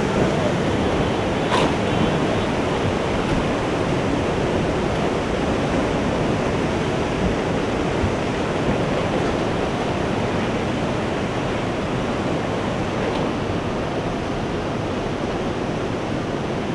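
Tsunami floodwater rushing and churning over a seawall and through the streets: a loud, steady wash of water noise.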